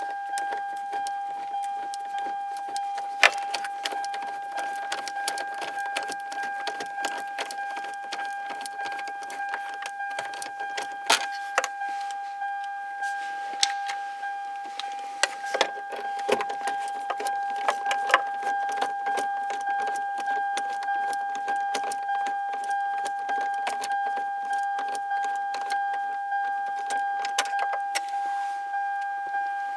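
A car's electronic warning chime dinging over and over, about once a second, with sharp metallic clicks and rattles from a screwdriver and screws on the radio's metal mounting bracket.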